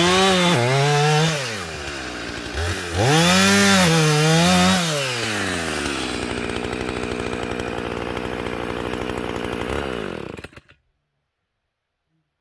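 Gasoline chainsaw revving high twice, with the engine falling back in between, then running steadier and quieter at a lower pitch before it stops abruptly about ten and a half seconds in.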